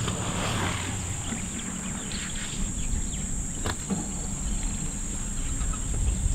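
Outdoor waterhole ambience: a low rumbling, a steady high insect buzz, and a single sharp click about three and a half seconds in.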